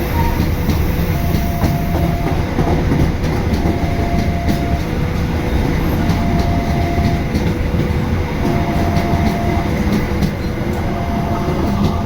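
A passenger train hauled by a CC204 diesel-electric locomotive rolling past, a steady heavy rumble with repeated clicks of wheels over rail joints. Two steady tones alternate high and low, each held about a second, over the rumble throughout.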